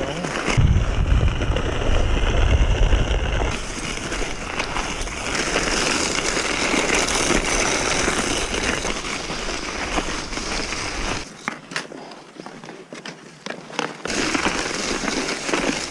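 Skis scraping and gliding over a groomed snow trail at speed, with wind rumbling on the microphone in the first few seconds. About eleven seconds in it goes quieter, leaving a few sharp clicks, then the scraping picks up again.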